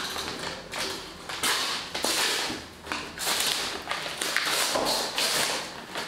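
Brown kraft paper wrapping on a parcel crinkled and torn off by hand, in a string of rustles and rips of about a second each.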